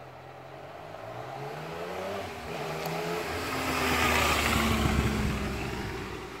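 2014 Yamaha FZ-09's three-cylinder engine under acceleration: its pitch rises for about two seconds, drops, then holds steadier while the sound grows louder to a peak about four to five seconds in and fades near the end.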